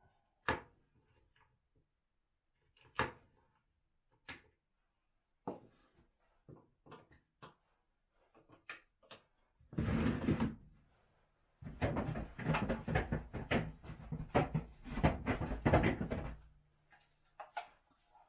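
Hard plastic Argo track segments knocking and clattering as they are handled and fitted together: a few separate knocks, then from about ten seconds in a longer stretch of quick, dense clatter.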